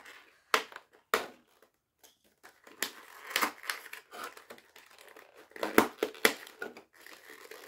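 Doll-box packaging crinkling and crackling as a doll's outfit is pulled free of its box insert: two sharp crackles in the first second or so, then denser crinkling, and a few sharp snaps near the end.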